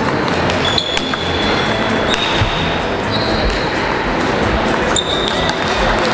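Table tennis balls clicking off bats and tables in a busy sports hall, with many rallies overlapping in a steady hall din. A few high squeaking tones come and go.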